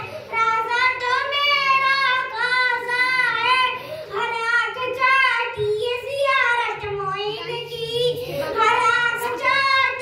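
A boy singing a devotional manqabat into a handheld microphone, one high voice holding and bending long notes.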